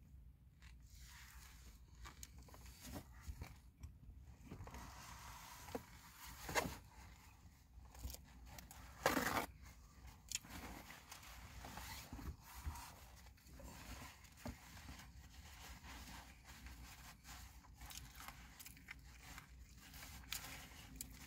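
A person eating a taco: soft chewing and crunching mixed with paper towel and wrapper rustling and crinkling. There is a louder rustle about six and a half seconds in and a longer one about nine seconds in.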